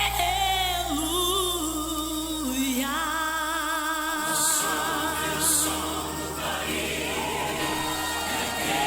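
Gospel music: voices singing long held notes with vibrato over sustained low instrumental chords, the chord changing about four seconds in.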